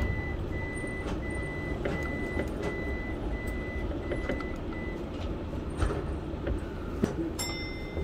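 Keio 1000 series electric multiple unit pulling away from a station, its low running rumble heard from the cab. A high electronic beep repeats at uneven spacing for about the first five seconds, and a short tone sounds near the end.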